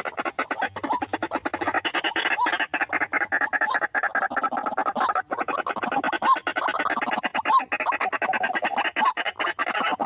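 White-breasted waterhen calling: a fast, even stutter of croaking pulses with a short rising note about once a second.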